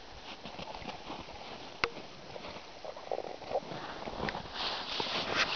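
A dog nosing and digging in snow after its ball: sniffing with the crunch and rustle of snow, a sharp click about two seconds in, and busier rustling over the last two seconds or so.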